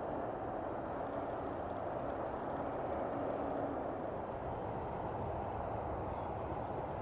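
Steady motorcycle road noise: an engine running under a continuous rush of wind.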